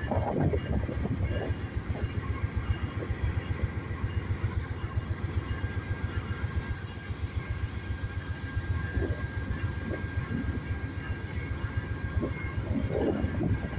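Amtrak Superliner passenger cars rolling along the track, a steady low rumble of steel wheels on rail with faint steady high-pitched tones above it.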